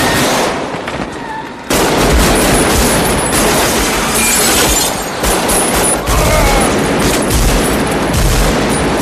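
Heavy automatic rifle fire: many sharp shots in rapid, overlapping bursts, kicking in abruptly about two seconds in and keeping up, mixed with bullets striking a car and shattering its glass.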